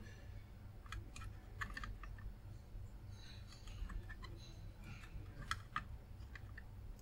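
Faint, scattered light clicks and ticks as a soldering iron tip works against small components on a circuit board while desoldering, over a low steady hum.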